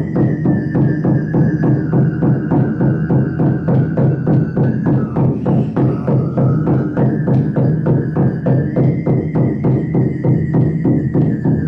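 Tuvan throat singing: a steady low drone with a whistling overtone melody above it that slides down about halfway through, climbs back and falls again near the end. Under it, a large hide frame drum is beaten steadily, about three strokes a second.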